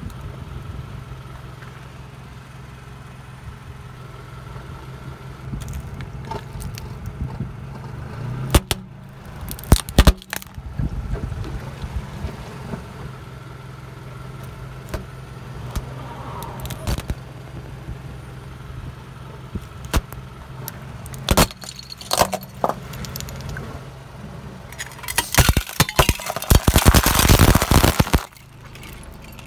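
Car engine idling with a steady low hum while a tyre bears down on a plastic Rubik's cube, which gives a few sharp cracks and snaps about a third of the way in. Near the end a tyre crushes brittle plastic in a long run of crunching and crackling that stops suddenly.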